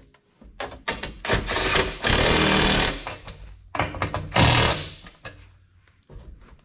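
Cordless impact driver hammering the tubular side step's mounting bolts down tight: a short run about a second in, a longer run of nearly two seconds, then two short bursts a little before the halfway point.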